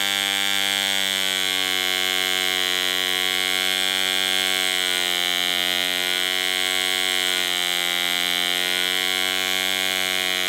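AM 15 1.5 cc two-stroke model aircraft diesel engine running at speed with its propeller turning: a steady, high-pitched buzz whose pitch wavers slightly in the middle. It is set rich enough to spit out a lot of fuel.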